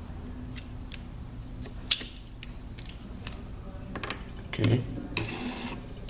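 Handling noise on a table: scattered clicks and taps, then a low thump and a short rasp as a utility knife and a roll of electrical tape are handled and put down, over a low steady hum.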